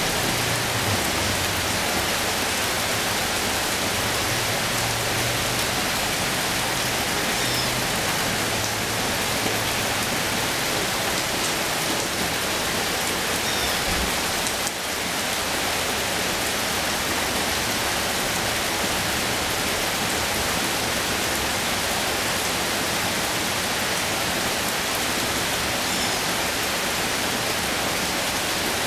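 Steady rain falling on tropical garden foliage, lawn and a puddled path, an even, unbroken hiss throughout.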